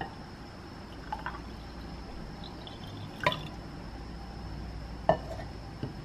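Ice cubes dropped into a glass mason jar of tea, making a few separate clinks and plops against the glass and into the liquid; the loudest come about three and five seconds in.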